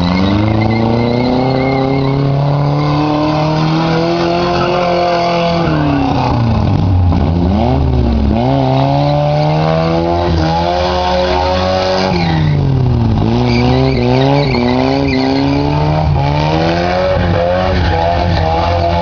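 A racing engine revving hard and accelerating. Its pitch climbs in repeated steps, as through gear changes, drops sharply about twelve seconds in, then climbs again.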